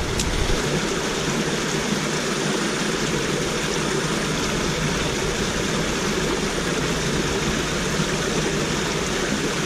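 Steady rush of water from a small cascade spilling into a shallow ditch.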